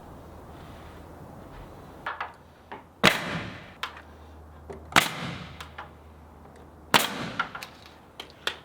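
Three loud, sharp bangs about two seconds apart, each with a short echoing tail, with a few faint clicks before the first.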